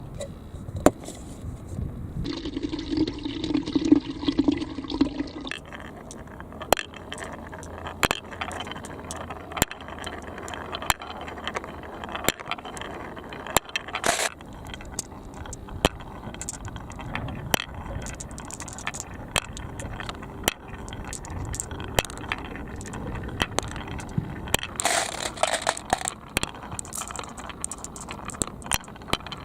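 Balls clicking and clattering down a marble run track, with water trickling and splashing along the course.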